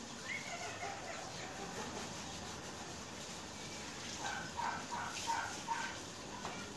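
A run of short, pitched animal calls, about five in quick succession, with a few scattered calls earlier.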